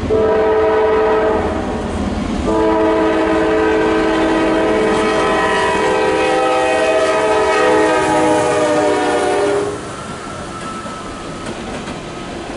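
CSX freight locomotive's air horn sounding a chord of several notes: a short blast of about two seconds, then a long blast of about seven seconds. After that, the wheel clatter and rumble of empty coal hoppers rolling past.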